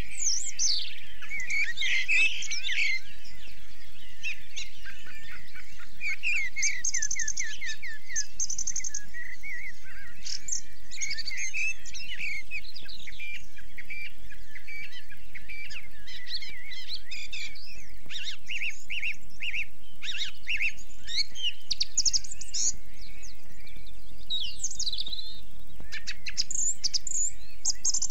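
Recorded birdsong from a bird-sound record: birds singing and calling, with chirps, whistles and fast trills overlapping one another without a break.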